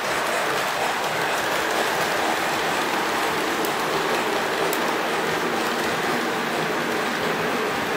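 Model train running steadily on the layout's track, a continuous even whirring rumble of motor and wheels on rails.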